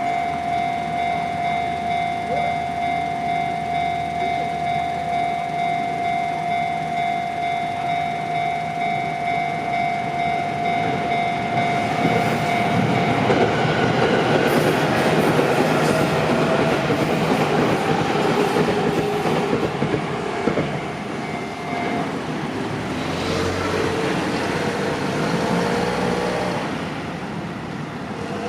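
Japanese level-crossing warning signal ringing with a steady, rapid repeating chime of about two strikes a second. About twelve seconds in, a train passes through with the rumble and clatter of its wheels on the rails. The alarm stops about twenty-two seconds in as the train clears, and then a road vehicle moves past.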